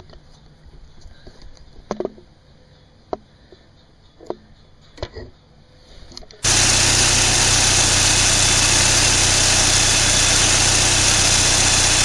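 A few light clicks and knocks, then about six seconds in the Mini Cooper S's supercharged four-cylinder engine is suddenly running, loud and steady, on its newly fitted drive belt.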